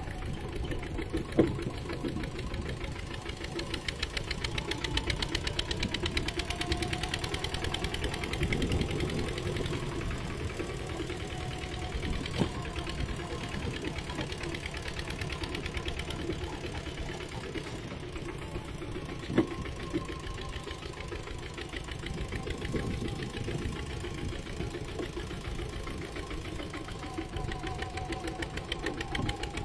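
Mini tractor engine running steadily with a fast, even beat, with three sharp knocks standing out along the way.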